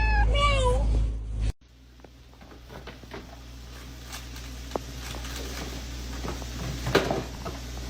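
A cat meowing, cut off about a second and a half in, followed by quiet room noise with a few faint clicks and taps.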